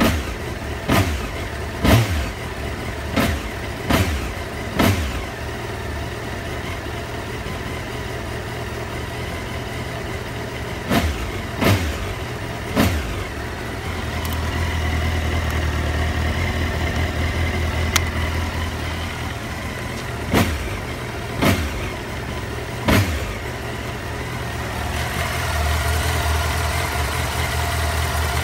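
Honda CBR954RR's inline-four engine idling, with short, sharp throttle blips in groups of several, and a stretch of somewhat higher, fuller running about halfway through.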